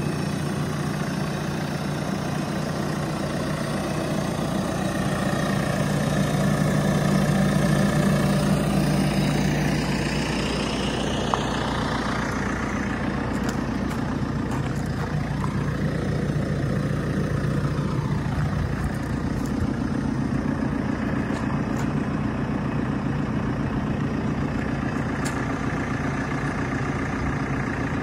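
Diesel engine of a JCB 4CX backhoe loader idling steadily, growing somewhat fainter after about ten seconds.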